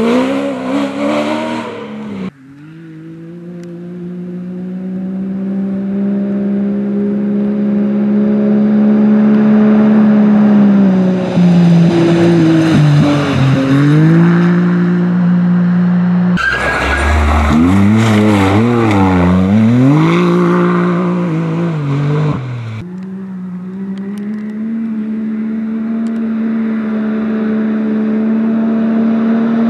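Competition off-road vehicles running hard, in several quick shots. First an engine holds a steady high note while it grows louder on approach, its pitch dipping and recovering once. Then an engine revs up and down unevenly, and finally a side-by-side buggy comes on at a steady, held engine note.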